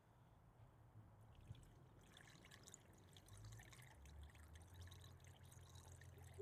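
Faint trickle of coolant leaking out of the cooling system while the electric water pump runs, with a low steady hum that grows about four seconds in.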